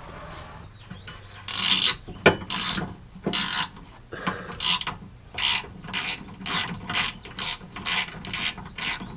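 Socket ratchet clicking as it runs down a tow-hook mounting bolt: a few longer, louder strokes in the first few seconds, then short even strokes about two a second in a cramped space with limited swing.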